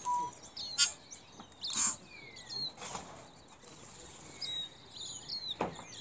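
Small birds chirping with many short high calls and a few falling whistles, broken by four brief whooshes of wings flapping.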